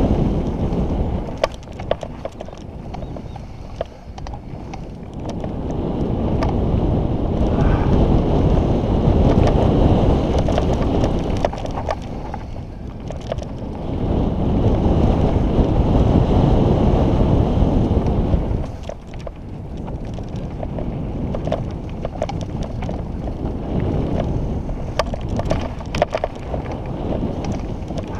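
Wind buffeting a helmet-mounted camera as a downhill mountain bike runs down a dirt trail, swelling twice with speed and dropping off sharply about two-thirds of the way in. Tyres crunch over dirt and gravel, and the bike gives sharp clicks and rattles over the bumps.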